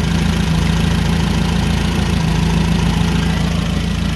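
Nissan K21 four-cylinder forklift engine idling rough and steady with a single-cylinder misfire. The misfire comes from the number 1 ignition coil, which has a shorted primary.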